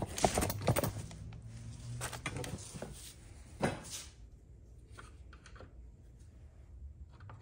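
Knocks and scrapes of objects being handled and set down on a cluttered workbench: a run of light knocks in the first three seconds, one sharper knock a little past halfway, then quieter.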